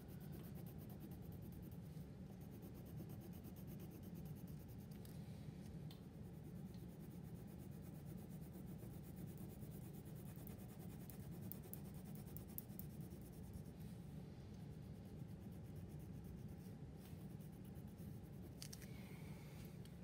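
Wax crayon scribbling back and forth on paper, a faint steady scratching as a drawn bird is colored in.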